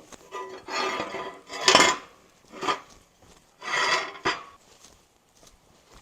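Metal pieces or tools being handled, with clanks and scrapes in about five separate bursts. The loudest comes a little under two seconds in, and there is a sharp click just after four seconds.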